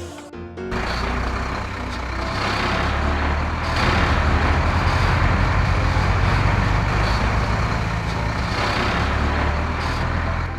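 Heavy vehicle engine running: a steady rumble that starts just under a second in and grows louder at about four seconds.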